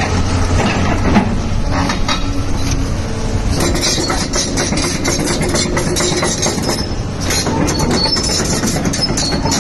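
Doosan DX225LCA hydraulic excavator's diesel engine running steadily. From about three and a half seconds in there is a dense run of metallic clanking and scraping.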